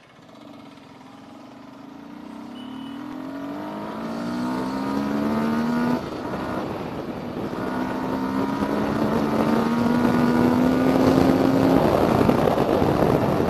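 Yamaha R15 V3's 155 cc single-cylinder engine accelerating hard, its pitch climbing steadily, dipping at an upshift about six seconds in, then climbing again. Wind noise on the microphone grows louder as the speed builds.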